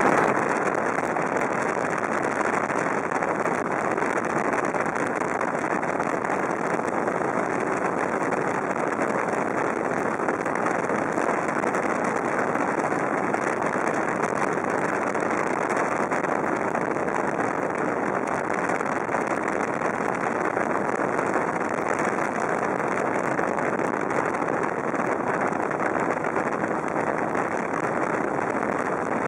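Suzuki GSF650 Bandit's inline-four engine cruising at a steady speed, blended with a constant rush of wind and road noise with no change in pace.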